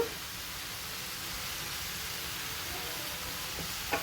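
Sliced button mushrooms frying in butter with garlic and onion, a steady even sizzle.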